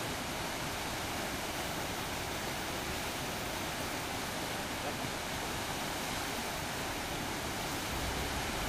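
Steady rushing of large river rapids, white water breaking over standing waves.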